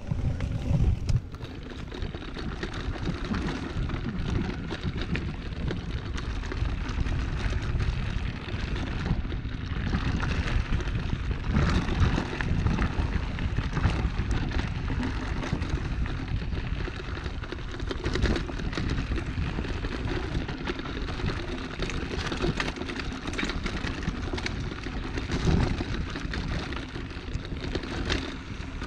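Steady rumbling noise on the microphone, like wind buffeting, with scattered knocks and rattles throughout.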